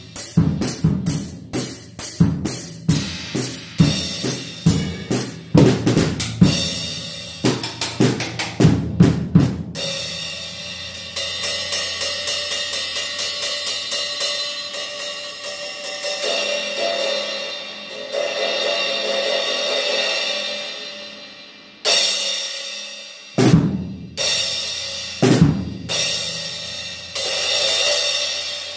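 Acoustic drum kit being played: a busy beat of bass drum, snare and cymbal hits for about ten seconds, then a long steady wash of cymbals with little drum underneath. After a short break near the end come a few heavy hits with cymbal crashes.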